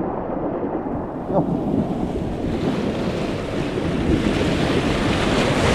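Surf washing over reef rocks at the shoreline, with wind buffeting the microphone; the wash builds to a louder surge near the end.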